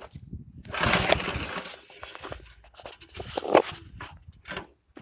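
Snowblower engine being cranked over twice without catching on a warm start, a hard-starting engine that never starts right away.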